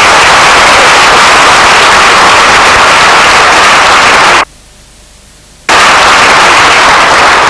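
Loud audience applause, harsh and distorted. It cuts out suddenly for a little over a second near the middle, then resumes.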